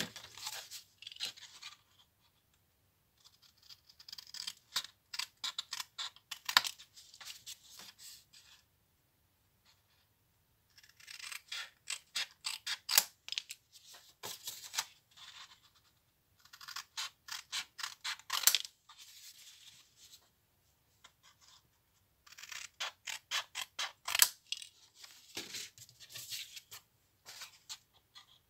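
Scissors snipping through cardstock in about five runs of quick cuts, several snips a second, with short pauses between the runs.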